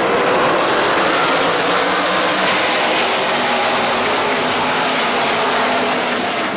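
A pack of NASCAR Craftsman Truck Series race trucks going past together, their V8 engines blending into one loud, dense sound that eases slightly near the end.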